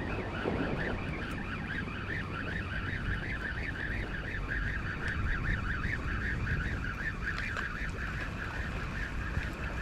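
Spinning reel being cranked steadily against a hooked fish, its gears giving a pulsing whir that rises and falls a few times a second. Low wind rumble on the microphone underneath.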